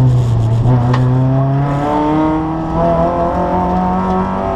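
Kia Picanto rally car's engine heard from inside the cabin, pulling hard under acceleration, its pitch rising steadily from about a second in.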